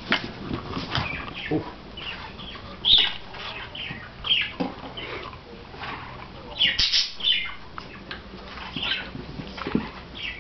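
Blue nose pit bull and Briard puppies play-fighting: scuffling and rustling on carpet with scattered short high-pitched squeaks, loudest about three seconds in and again near seven seconds.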